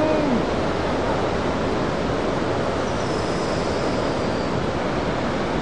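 Steady roar of heavy ocean surf breaking, an even rush of noise with no let-up.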